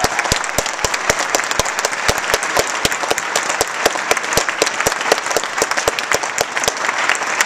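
Audience applauding: many hands clapping together without a break.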